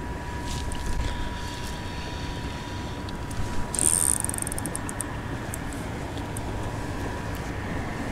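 Spinning reel and line working against a hooked fish, with a short burst of ticking about four seconds in, over a steady low rumble of wind on the microphone.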